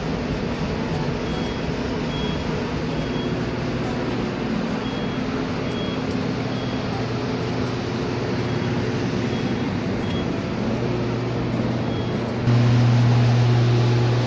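Water-restoration air movers (carpet-drying blowers) running, a steady fan rush with a low hum, drying out flood-damaged carpet and walls. The hum jumps louder about twelve and a half seconds in, as the blower comes close. Faint short high beeps repeat at intervals through the noise.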